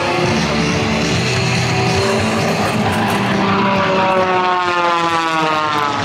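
Aircraft flying past, its engine tone sliding down in pitch as it goes by in the second half, over a steady engine noise.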